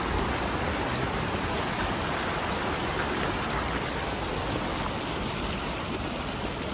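Fast-flowing floodwater rushing across flooded ground, a steady hiss and rumble with no breaks.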